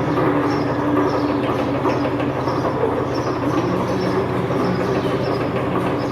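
Imor metal lathe running under power, a steady mechanical hum and gear whine with a light rhythmic clatter about twice a second.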